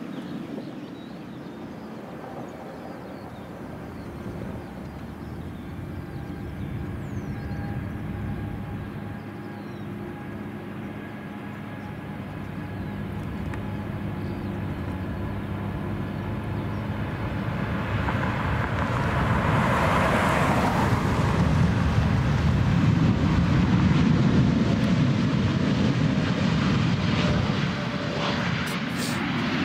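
Boeing 787 jet airliner's engines, a steady jet rumble that grows louder as the aircraft comes closer. It peaks with a rushing hiss about twenty seconds in and heavy low rumble after that, easing a little near the end.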